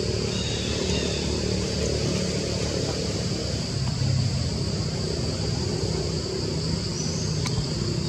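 Outdoor ambience: a steady high-pitched insect drone over a continuous low rumble, with a faint chirp or two and a single click near the end.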